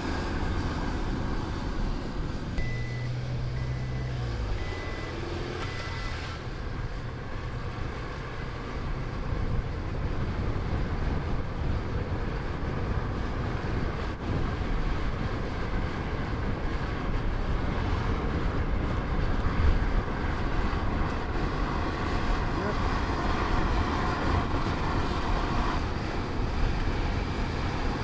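Car driving at speed on a road: a steady rush of tyre, road and wind noise over a low engine hum. A few short high beeps sound between about three and six seconds in.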